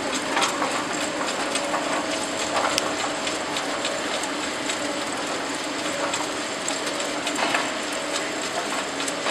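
Potato strip production line machinery running: stainless steel wire-mesh belt conveyors and chutes give a steady mechanical clatter with a low hum, and scattered light ticks through it.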